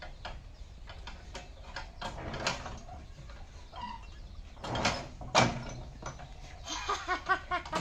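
Clunks and clicks of a two-wheeled power tiller's handlebar frame being rocked up and down, with two loud knocks about five seconds in. Near the end, a quick run of short squeaky sounds.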